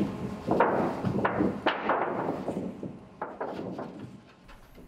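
Large thin aluminium sheet being bent and buckled by hand, giving a string of sharp crackling pops and bangs as the metal folds. The sounds grow fainter and fade out near the end.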